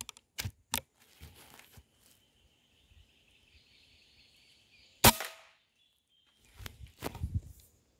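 A few sharp clicks as the rifle is loaded, then about five seconds in a single sharp rifle shot with a brief ring after it, followed by about a second of low handling knocks and rustling.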